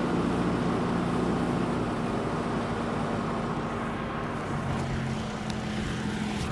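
Tractor-driven grain bag extractor running steadily as it empties a grain storage bag, its auger conveying the grain up into a semi's grain trailer, over the tractor's engine. A steady low hum runs throughout.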